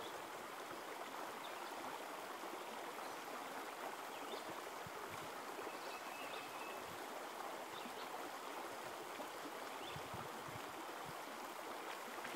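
Creek water running steadily over a shallow rocky riffle: an even, unbroken rush. A few faint, short high chirps sound over it.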